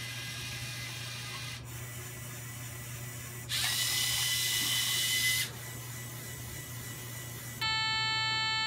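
Small LEGO Mindstorms robot's electric motors whirring as it drives and works its claw, with a louder, harsher whir for about two seconds in the middle. Near the end a steady electronic beep tone starts and holds.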